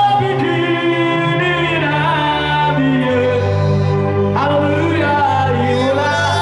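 Slow gospel worship music played on an electronic keyboard: long held chords over sustained bass notes, with a melody line that slides into new notes about four seconds in.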